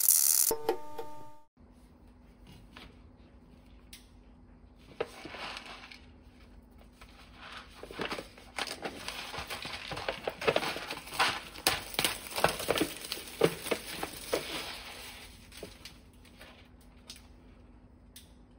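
A short intro jingle cuts off about a second and a half in. The packaging of an instant noodle bowl then crinkles and crackles in irregular bursts as it is handled and turned over in the hands, busiest in the middle and dying away near the end.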